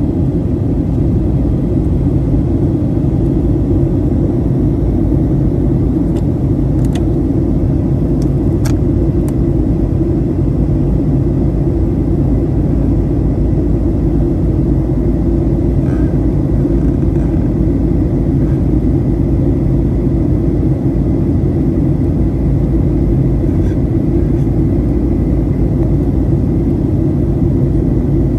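Steady low cabin rumble of a Boeing 737-800 in flight: engine and airflow noise heard from inside the passenger cabin. A couple of faint clicks about a quarter of the way in.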